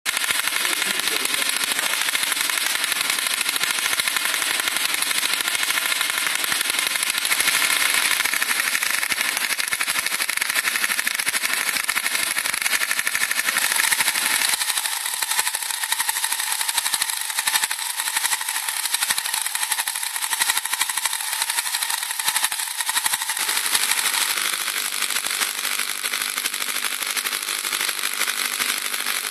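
Tesla coil with a ring-shaped halo toroid, sparking steadily from the rim of the ring with a loud, continuous buzz of electrical discharge. About halfway through, the lower part of the buzz drops out and leaves a thinner, hissier sound; some lower tone returns about three quarters of the way in.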